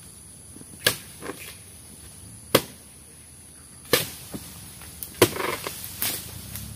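Sharp chopping strikes of a long-poled harvesting blade cutting into oil palm frond stalks in the crown: five separate strikes, unevenly spaced about a second apart, with a brief rustle and crackle of fronds after the fourth.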